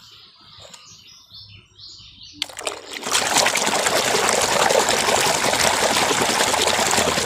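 A hand sloshing and scrubbing in a plastic basin of foamy soapy water, starting suddenly about two and a half seconds in and then going on steadily, with a fine crackle of bubbling foam.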